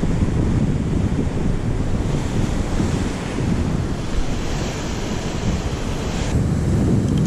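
Wind buffeting the microphone over ocean swell surging and breaking against the foot of a sea cliff, a steady rumbling wash of noise; the hiss dulls a little about six seconds in.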